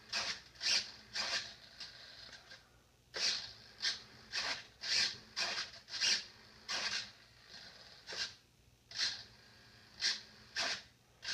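A rapid series of short rasping whirs, about one or two a second, from the model's micro servos driving the split flaps between positions.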